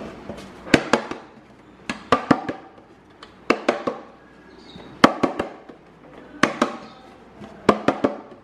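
A hand tapping the side of a dark metal loaf pan in quick groups of two to four taps, roughly once a second. The taps knock loose flour across the pan's greased inside to coat it.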